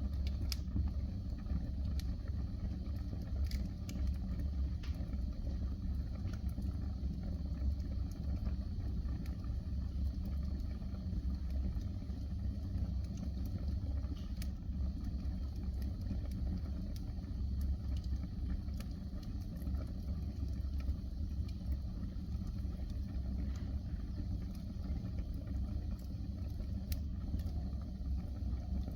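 Wood fire burning in a fireplace: a steady low rumble with a few sharp, scattered crackles.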